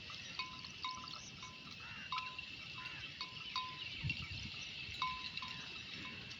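Small bells worn by a flock of sheep clinking irregularly as the animals move, each strike ringing briefly, about two or three a second, over a steady high tone.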